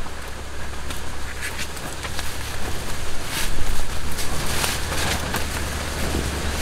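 Nylon webbing strap and tent fabric rustling and scraping as a corner strap of a mesh inner tent is threaded through its buckle and pulled tight, with a few sharper zips of the strap. A steady low rumble runs underneath.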